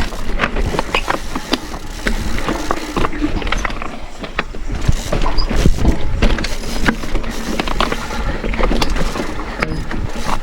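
Mountain bike on a rough trail: the chain and drivetrain rattle, with many irregular sharp clicks and ratchet-like ticking over a steady low rumble.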